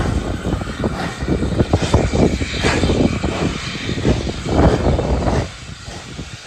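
Steam locomotive working hard as it pulls a train away from a stand, its exhaust beats coming in quick, irregular succession over a low rumble. The sound drops noticeably about five and a half seconds in.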